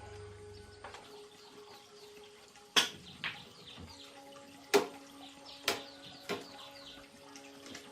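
Five sharp knocks at uneven spacing, over a faint steady hum.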